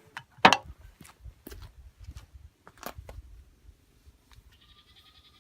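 A few sharp clicks and knocks over soft rubbing as a Jeep's window frame is wiped down with a shop towel and denatured alcohol. Near the end a faint, steady high tone begins.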